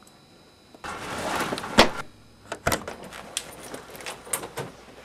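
A door being opened, with a rustling rise and a sharp latch click about two seconds in. Scattered knocks and rattles follow, and a louder thump comes at the very end.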